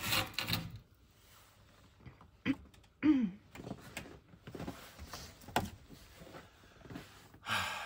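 Hinged wooden lid of a well house being handled and swung shut: scattered knocks and scrapes of wood, with a short falling creak about three seconds in and a few sharp clicks as it is fastened.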